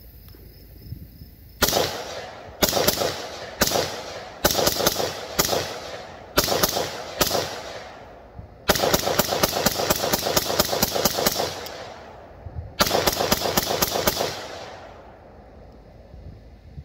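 AR-15-pattern rifle firing rapid strings of shots: seven short strings, then a longer string of about three seconds, then a last string, with echo fading after it.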